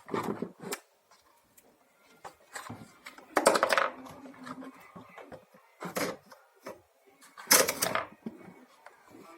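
Hands working on a vacuum cleaner's power cord and plastic parts: scattered clicks and knocks, with two louder rustling scrapes about three and a half and seven and a half seconds in. No motor is running.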